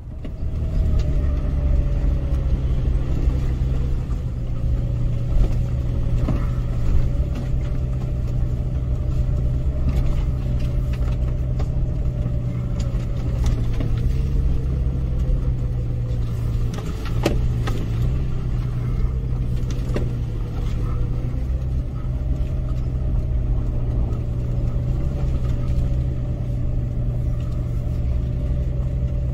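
An off-road 4x4 driving slowly over a rough dirt trail, heard from inside the cabin: a steady low engine drone with a faint whine that drifts up and down in pitch, and a few knocks and rattles from bumps in the track.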